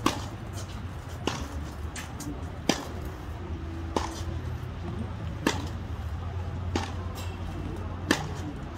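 Tennis ball being hit back and forth in a practice rally: sharp pops of the ball off racquet strings and off the hard court, about one every second and a half, over a steady low hum.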